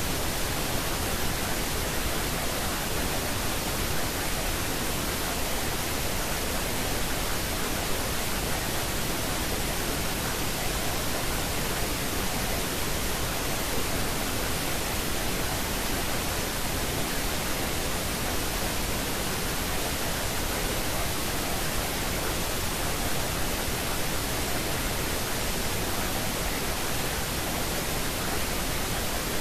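Steady, unchanging pink noise, an even hiss across all pitches: the masking noise of a subliminal affirmation recording, with any affirmations buried too low to be heard as words.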